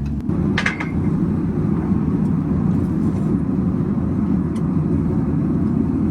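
A steady low rumbling roar, with a brief sharp click about two-thirds of a second in and a fainter one later.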